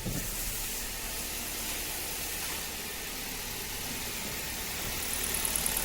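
Kia Rio 1.6 petrol engine idling steadily just after its first start following a piston and cylinder-sleeve rebuild. It runs quietly with no piston knock. Only a light ticking from the fuel injectors is heard over the idle.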